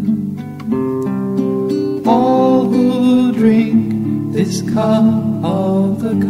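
Music: acoustic guitar playing the accompaniment of a liturgical song.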